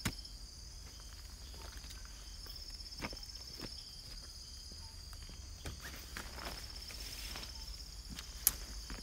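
Night insects trilling: a high, rapidly pulsing trill that comes and goes in spells of a second or more. Scattered light clicks and knocks, with one sharp click near the end, are heard over a low rumble.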